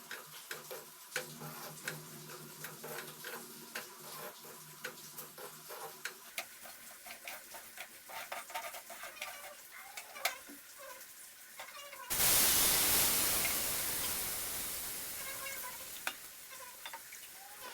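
A spatula clicks and scrapes in a kadhai as the upma is stirred. About twelve seconds in, a sudden loud sizzle breaks out and slowly dies down, as water hits the hot pan.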